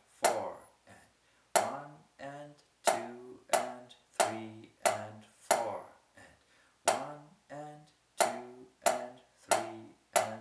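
Wooden drumsticks striking an Ahead 10-inch practice snare pad in a steady rhythm, a sharp crack about every two-thirds of a second.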